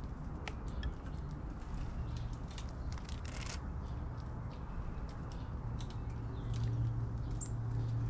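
Dove pecking and stepping in scattered birdseed: a scatter of small sharp ticks, with a brief rustle about three and a half seconds in. A low steady hum runs underneath and grows a little louder near the end.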